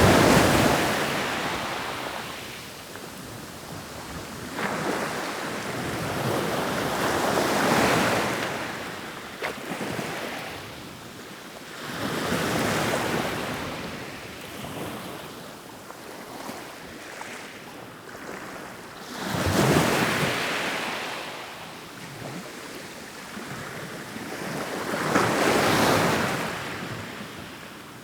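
Ocean waves rolling in and breaking on the shore, the wash swelling and fading away again every several seconds.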